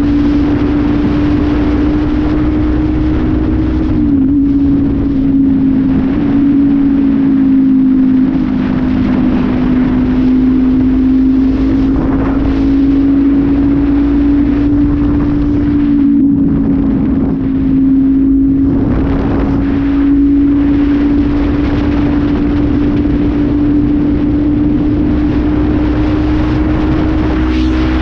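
Honda CB500F's parallel-twin engine breathing through a PureSound aftermarket exhaust with no air filter, cruising at a steady road speed; its pitch holds nearly level, dipping briefly a few times as the throttle eases. Wind rushes over the microphone throughout.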